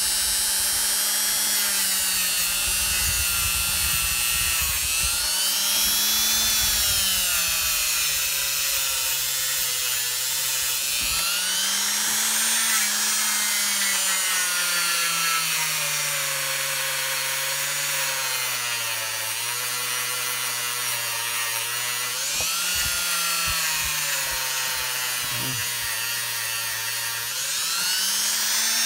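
Hand-held power tool scouring rust off a steel knife blade held in a vise. The motor's pitch sags under load and picks back up several times, over a steady high grinding hiss.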